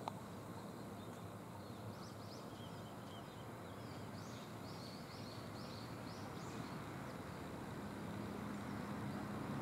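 Faint outdoor ambience: a steady background hush with a run of short, high repeated chirps from about two to seven seconds in, and a low hum growing slightly louder near the end.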